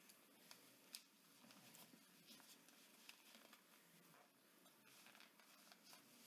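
Near silence with faint scattered clicks and light rustling: a cable being handled and tucked into a cable organizer's slots. The loudest is a single sharp click about a second in.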